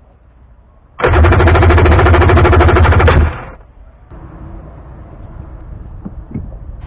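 Polaris Genesis 1200i two-stroke three-cylinder jet ski engine cranked on its starter for about two seconds, sputtering with rapid pops as it tries to fire but does not catch, then stopping. A quieter steady hiss follows as an aerosol can is sprayed into the engine.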